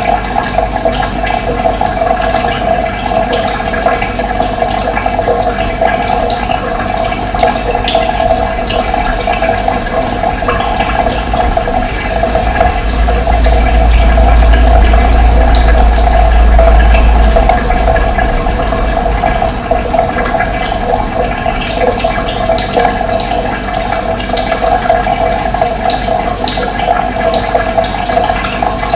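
Running water, a steady rushing flow, with a deep rumble that grows louder for a few seconds midway.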